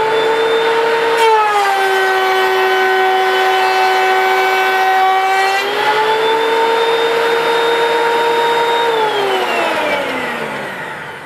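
DeWalt DW734 thickness planer running with a high motor whine that drops in pitch for about four seconds as the cutterhead takes about a sixteenth of an inch off a strip of grooved molding, then rises back to full speed once the wood is through. Near the end the whine falls away steadily as the machine is switched off and winds down.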